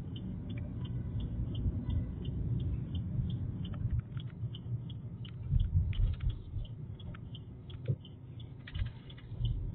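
Car cabin noise while driving slowly: a steady low engine and road rumble, with a regular light ticking of about three to four ticks a second throughout and a few scattered clicks.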